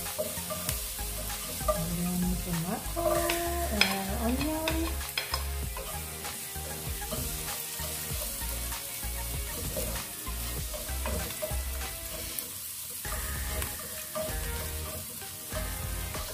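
Minced garlic and diced onion sizzling in hot oil in a nonstick pan, with a slotted spatula stirring and scraping the pan bottom in small clicks.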